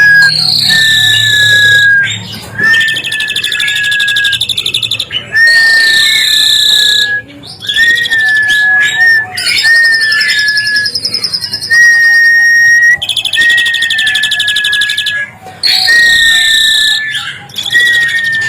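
Asian pied starling (jalak suren) singing agitatedly: a run of loud, slightly falling whistled notes about a second each, laid over harsh, raspy chatter, repeated with short breaks.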